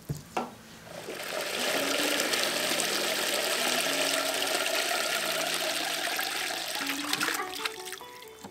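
Water poured from an upturned plastic bottle into a plastic tub, a steady rushing splash starting about a second in and tapering off near the end, as the tub is filled to soak cured fish and draw out the salt.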